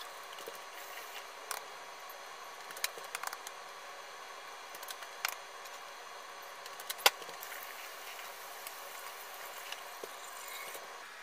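Eggs being cracked by hand over a bowl: a few short sharp taps and cracks of eggshell, the loudest about seven seconds in, over a steady faint hiss.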